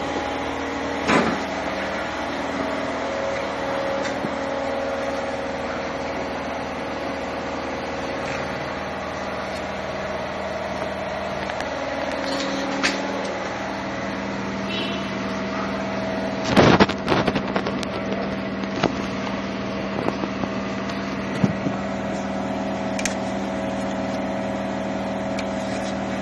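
Steady mechanical hum holding several fixed tones, broken by a few sharp knocks. The loudest knock comes about two-thirds of the way through.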